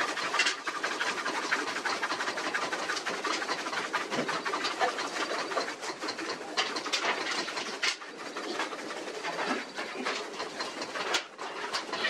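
Cow being milked by hand: jets of milk squirting from the teats into a metal pail in a quick run of short hissing squirts.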